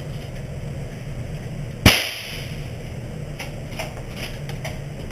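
A single gunshot about two seconds in, over a steady low hum.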